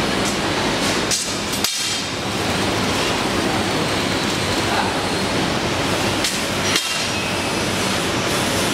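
Steady noise of factory machinery running, with a low hum and a few sharp clicks about a second and a half in and again around six to seven seconds in.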